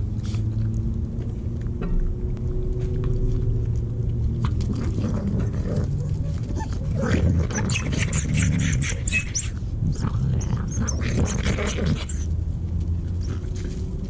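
Coyotes snarling and growling as they fight over food. The snarling starts about four or five seconds in and runs for some seven seconds before it dies down, over a steady low hum.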